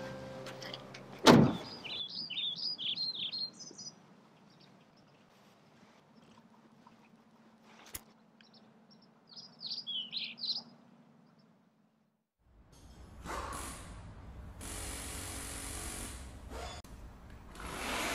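A car door slams shut about a second in, then small birds chirp in two short runs of quick falling calls. Near the end a steady rushing noise takes over.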